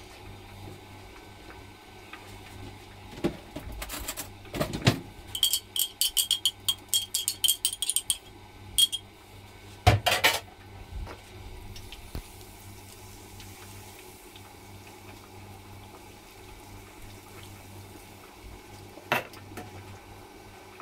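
Kitchenware being handled at the counter and sink: a quick run of ringing metallic clinks for a few seconds, then a louder knock about ten seconds in and another near the end.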